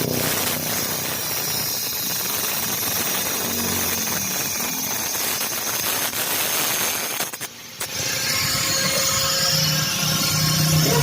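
Power tool working a metal pipe, running steadily with a brief stop about seven and a half seconds in, as teeth are cut into the pipe to make a wrench for a fork's top cap.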